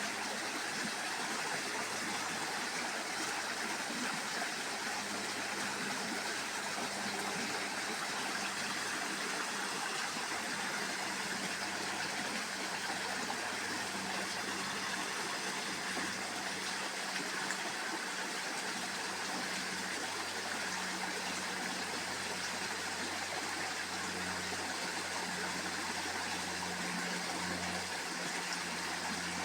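Waterfall rushing, a steady even splash of falling water that holds at one level throughout.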